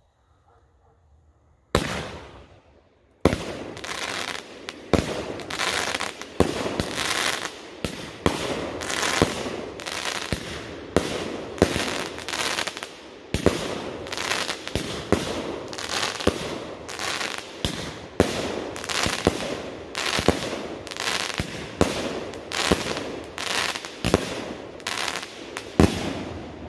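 A 19-shot consumer firework cake firing: after a quiet start, a first sharp report about two seconds in, then from about three seconds a steady string of bangs roughly once a second, each shot's launch and burst trailed by crackle, running without a break.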